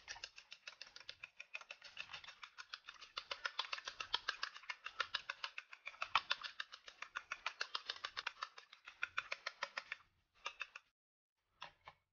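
A fork beating a raw egg in a ceramic bowl: rapid clicking of metal against the bowl, about eight strokes a second. The beating stops about ten seconds in, followed by two short bursts of a few more strokes near the end.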